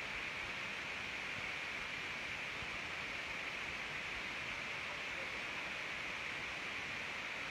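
Steady hiss with nothing else standing out: room or recording background noise.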